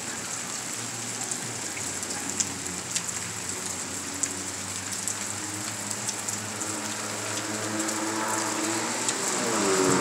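Steady rain falling on pavement and puddles, with scattered drop ticks. In the last few seconds a car approaches through the wet street, its engine and tyre noise growing louder.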